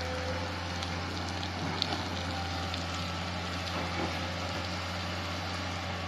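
Loose rock and gravel, pushed off a cliff-side road cut by an excavator, sliding and tumbling down the rock face as a steady rattling hiss with scattered small clicks, over the low steady hum of the excavator's diesel engine.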